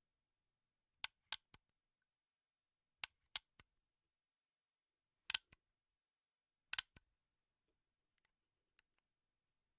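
Gun action clicks from a weapons sound-effect set: sharp mechanical clicks in four quick groups of two or three, about every two seconds, with dead silence between, then two faint ticks near the end.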